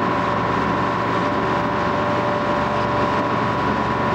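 Passenger ferry under way, its engine running steadily with water and wind noise, under a constant high whine.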